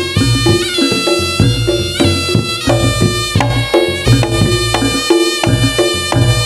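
Reog Ponorogo obyokan gamelan music: a slompret shawm plays a bending, nasal melody over a steady beat of kendang drums and a repeating kenong gong tone, played loud through a sound system.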